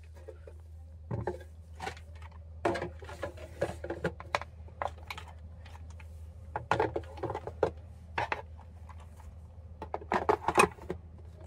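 Handling noise: irregular clicks, taps and light knocks, with a cluster about 10 seconds in, over a low steady hum.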